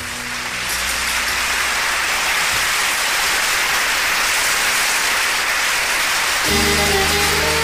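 A loud, even, rain-like hiss with no pitch in it. About six and a half seconds in, music enters with held instrumental notes.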